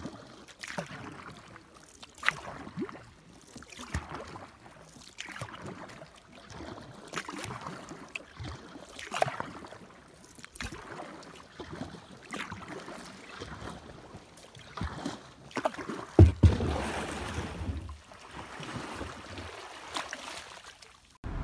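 Kayak paddle strokes dipping and splashing at an irregular pace, with water dripping and lapping against the hull. About sixteen seconds in come loud knocks and a scraping rush as the kayak comes ashore.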